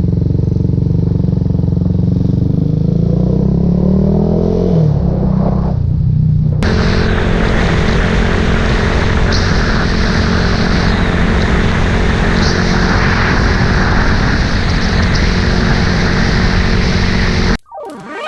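Motor vehicle engine running on the road, its revs rising over the first few seconds. About six seconds in it changes abruptly to a steady engine drone with road noise, which cuts off near the end.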